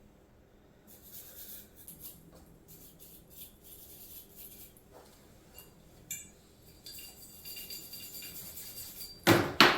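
Small wire brush scrubbing carbon off the back of an M1911 pistol's slide around the firing-pin hole: faint scratching with light metallic clicks, and a short, much louder burst of noise near the end.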